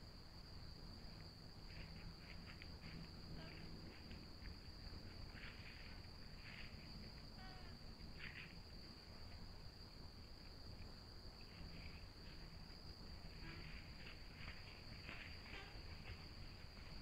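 Faint, steady high-pitched trill of night insects such as crickets, with scattered rustles of dry leaf litter as a deer walks through it.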